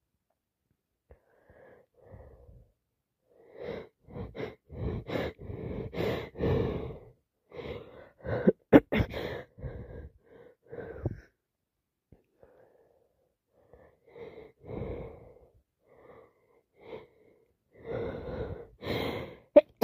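A woman with a summer cold sniffing and drawing wheezy, gasping breaths in quick runs, with sharp sudden sneezes about nine seconds in. Another run of gasping breaths builds near the end.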